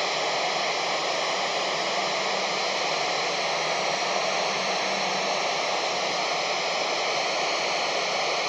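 Steady loud rushing FM static hiss from a Kenwood handheld radio's speaker, tuned to the 2 m amateur band with no voice on the channel. This is the open-squelch noise heard when the space station's downlink carries no speech between answers.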